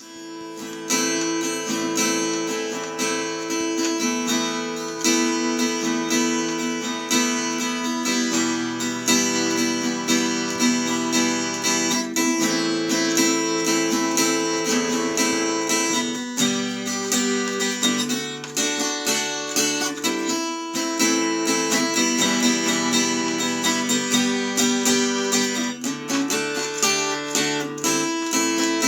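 Acoustic guitar music, strummed chords changing every couple of seconds, laid over the opening as background music.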